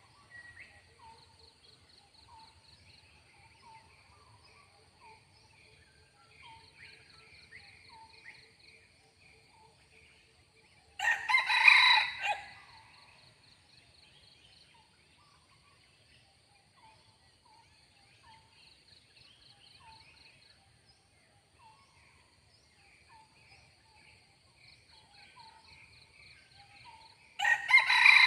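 A red junglefowl rooster crows twice, each crow short and about a second and a half long, the second coming about sixteen seconds after the first. Between the crows there is a steady high insect drone and faint small bird chirps.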